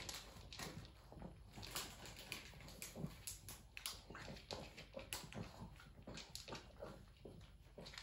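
Pug sniffing and snuffling in quick, irregular bursts, its nose pushed into the gap under a cabinet.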